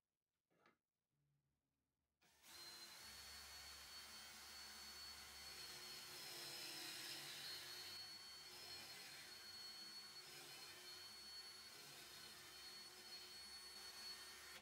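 Cordless drill starts about two seconds in and runs steadily with a thin high whine, spinning a plywood band-saw wheel while a wood chisel held on a rest scrapes shavings off its rim. It stops suddenly at the end.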